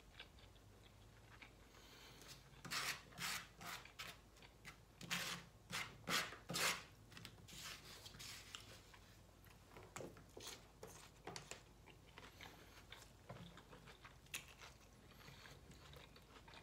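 A plastic fork scraping and stabbing at food in a foam takeout box, with close-miked chewing. It comes as a run of sharp scratchy strokes from about three to seven seconds in, then fewer and softer ones.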